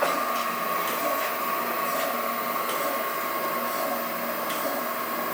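Chevalier FSG-1020AD surface grinder running steadily on an automatic cycle, its hydraulic system driving the table back and forth, with a constant whine and a few faint ticks.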